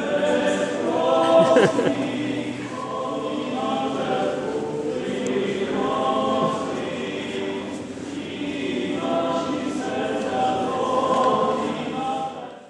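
Church choir singing in long held phrases a few seconds each, with short breaks between them.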